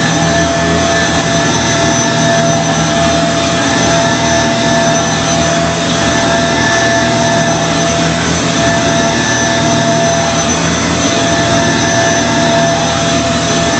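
2006 Kenmore Progressive Intelliclean canister vacuum cleaner running steadily, a loud, even motor whine over a rush of air.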